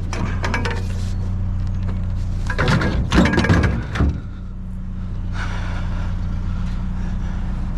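Vehicle engine idling steadily under handling noise: a cluster of knocks and rattles just after the start and a louder burst of clattering about three seconds in, as metal objects are picked up and moved.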